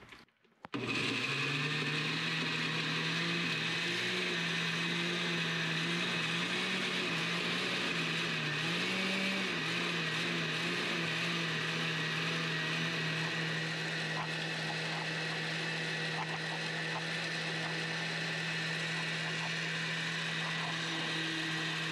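Electric countertop blender running steadily, blending chopped green onion tops with a little wine. It switches on about a second in, and its motor pitch wavers for several seconds before holding steady.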